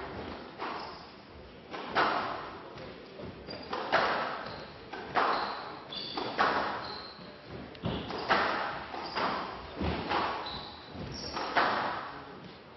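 Squash rally: the ball is struck by rackets and hits the walls about once a second, each hit echoing in a large hall, with short high squeaks of court shoes on the floor between shots.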